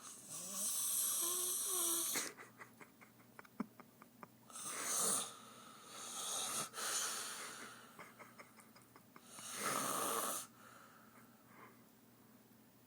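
A woman snoring loudly in deep sleep, a breath cycle about every five seconds: a run of fast rattling flutter alternating with a loud, breathy, hissing puff. It dies down near the end.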